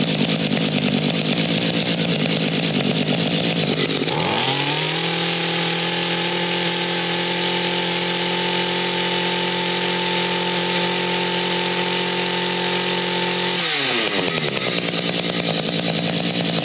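Mantis tiller's two-stroke engine idling, then revved up about four seconds in, held steady at high speed for about ten seconds, and let back down to idle near the end. It is running on a freshly rebuilt carburetor.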